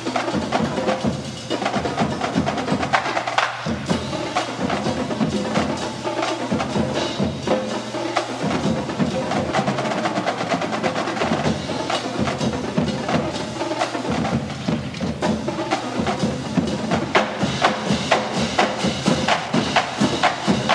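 A college marching drumline playing a fast cadence, with snare drums, tenor drums, bass drums and cymbals in a dense, driving rhythm. It is heard through a dub from an old cassette tape.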